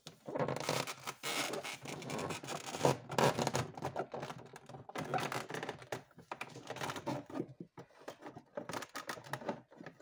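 Plastic evaporator cover panel of an Electrolux Frost Free refrigerator scraping and clicking against the plastic liner as it is worked into place by hand: an irregular run of rubbing with many small knocks.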